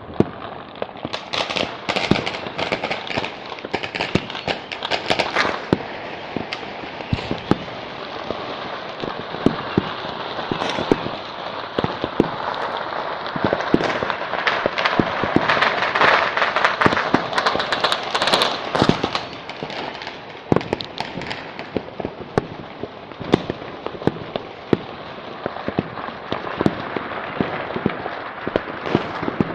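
Many firecrackers and fireworks going off at once: a continuous crackle of rapid cracks with louder single bangs scattered through it, densest and loudest about halfway through.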